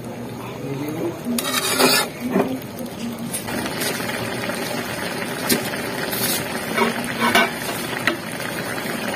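Metal spatula stirring and scraping grated papaya and greens in coconut milk in an aluminium wok, loudest between one and two seconds in, with a few scattered clinks afterwards. Under it the coconut milk simmers steadily.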